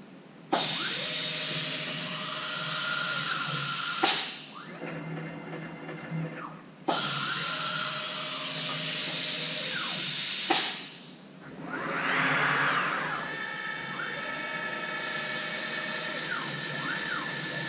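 CNC milling machine facing a part with a face mill: two loud cutting passes of about three and a half seconds each, each ending sharply, with quieter spindle running between them, then a swell in the sound and a steady whine to the end.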